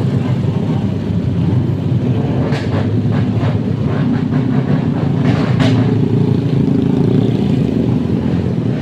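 Vehicle engine running with a loud, steady rumble through its exhaust, broken by a quick run of sharp exhaust pops about two and a half seconds in and another couple about five and a half seconds in.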